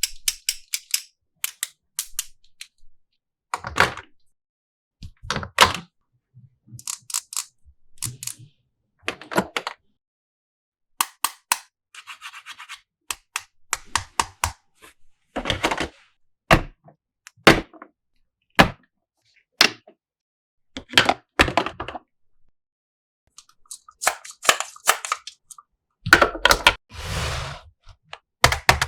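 Hard plastic toy pieces being handled: separate clicks, clacks and knocks as parts are picked up and set down, with short scrapes between them and a longer, louder scrape near the end.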